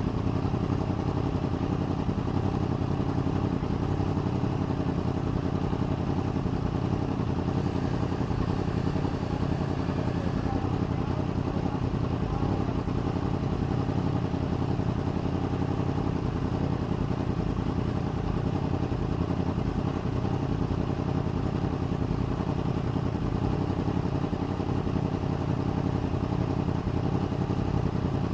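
A vehicle engine running at a steady, unchanging speed, with no revving.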